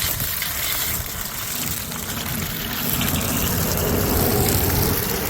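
Water rushing steadily from a leaking supply pipe, a continuous hissing gush that grows a little louder about three seconds in.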